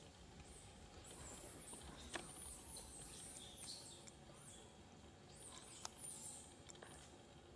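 Faint, high-pitched bird chirping: two bouts of quick rising-and-falling notes, over a quiet background hiss with a couple of soft clicks.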